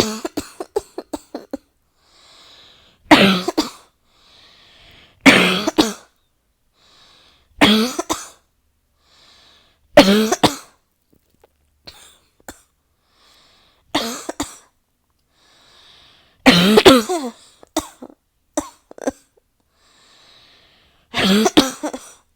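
A person in a coughing fit: harsh coughs in bouts every two to three seconds, some trailing off into a run of short hacks, with a quiet breath drawn in between bouts.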